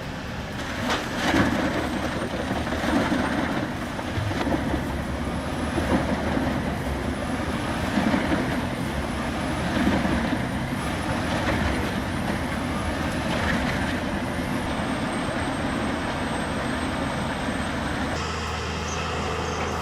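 Heavy machinery running steadily, a large engine with a constant low hum and noise. The sound changes abruptly about eighteen seconds in, as if at a cut to another machine.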